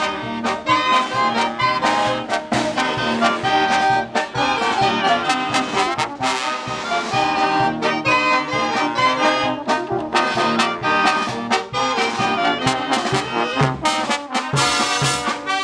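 Brass band playing a corrido huarochirano, trumpets and trombones carrying the melody over a steady, evenly spaced drum beat.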